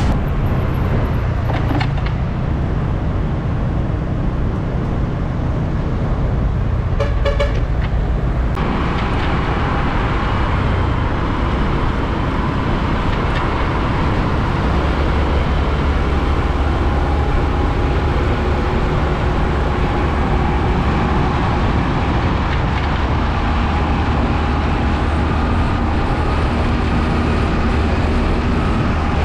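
Heavy road traffic: container-truck diesel engines rumbling steadily with tyre and road noise, and a brief horn toot about seven seconds in.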